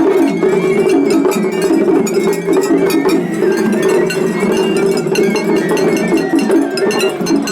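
Japanese festival hayashi music: a bamboo fue flute plays a stepped high melody over taiko drums, and an atarigane hand gong is struck in a rapid, continuous clanging rhythm.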